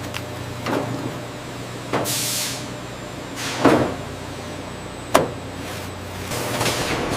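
Food-processing machinery running with a steady low hum, broken by several sharp clanks and knocks and a short hiss about two seconds in.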